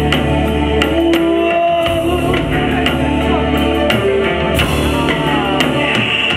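Live metal band playing: a singer holds long notes over distorted guitar, keyboards and a drum kit with frequent cymbal crashes.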